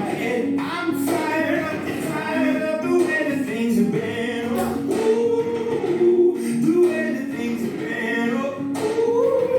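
Background music: a song with singing voices over accompaniment.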